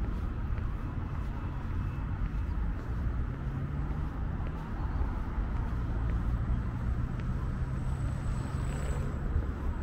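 Street traffic: the low rumble of motor vehicles, with one engine's steady hum holding for several seconds.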